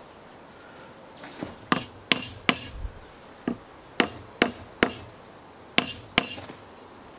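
Small hammer driving a nail into a joint of a pallet-wood frame: about nine sharp taps in three quick groups of three.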